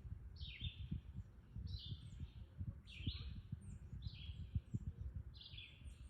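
A bird calling over and over, about five short calls a little over a second apart, each starting with a quick drop in pitch. Low thumping and rumbling runs underneath.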